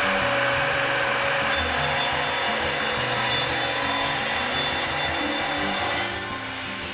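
Evolution Rage 255 sliding miter saw running and sawing through stock. The cutting sound brightens about a second and a half in and eases off near the end.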